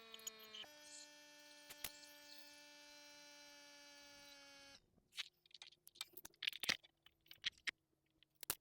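Faint steady hum that drifts slightly down in pitch, jumps up under a second in, then cuts off abruptly just under five seconds in; light clicks and taps follow.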